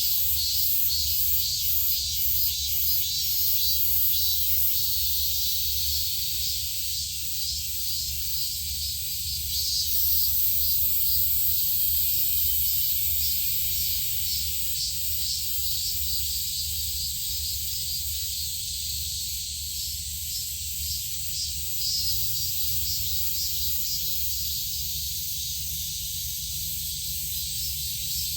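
Steady high-pitched hiss of insects, pulsing faintly a few times a second, over a constant low rumble.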